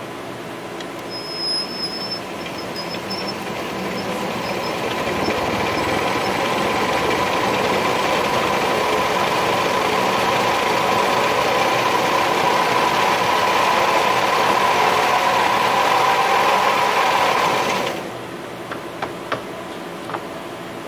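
Arpeco label rewinding machine running at speed 100, its motor and rollers whirring as a roll of labels winds on. The sound builds over the first several seconds as it comes up to speed, runs steadily, then cuts off suddenly about 18 seconds in, followed by a few light clicks.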